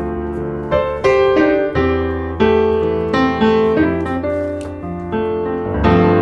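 Background piano music: a slow melody of notes and chords struck about every half second to second, each ringing and fading.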